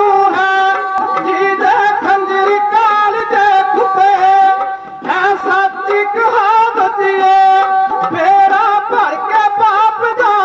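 Punjabi dhadi music: a sarangi holding and sliding its melody over the beat of a dhadd hand drum, with men singing. It breaks off briefly about halfway through.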